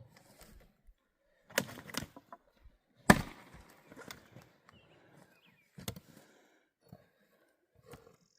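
Split firewood being tossed onto a load: a series of hard wooden thuds and knocks, the loudest about three seconds in, with quiet gaps between.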